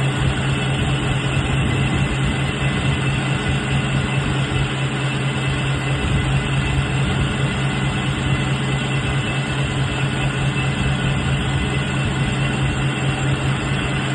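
Drilling machine running: a steady, unchanging machine noise with a strong low hum.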